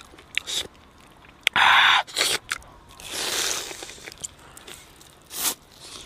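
Bites into a crispy fried chicken thigh, with crunching and chewing in short, sharp bursts; the loudest crunch comes about two seconds in.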